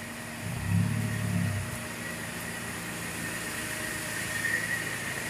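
Parked bus's engine idling, a steady low running that swells briefly about a second in, with a thin steady high whine over it.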